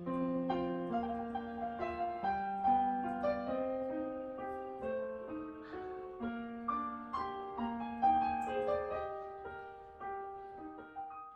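Gentle piano music: a melody of single notes over held lower notes, fading out near the end.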